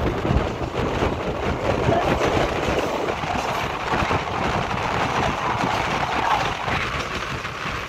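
Express passenger train running, heard from the open doorway of a sleeper coach: a steady rumble with a busy clatter of wheels on the rails and the coach rattling.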